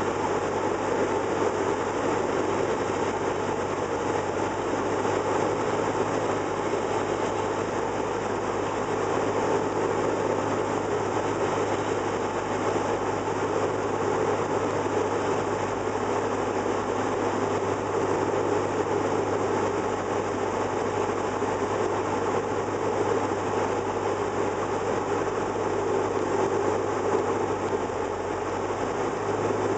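Cessna 172's single piston engine and propeller running steadily, heard from inside the cockpit as an even, unbroken drone with a low hum under it.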